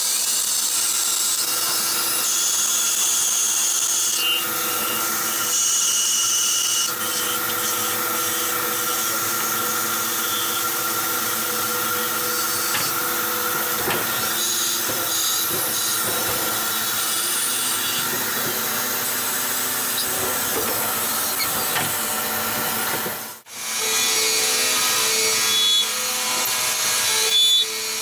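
CNC lathe turning metal under coolant spray: a steady whine from the spindle and drives over the hiss and scrape of the cutting tool. About three-quarters of the way through the sound drops out briefly, then comes back with a different set of steady tones.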